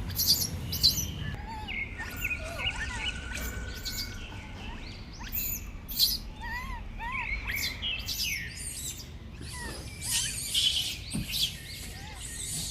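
Many short, high-pitched chirping animal calls, overlapping one another, with a held whistle-like note about two seconds in and a cluster of sharp, harsh squeals about ten seconds in.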